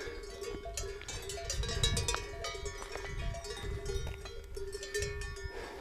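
Several cowbells on grazing cattle clanking unevenly and overlapping, each strike ringing on briefly.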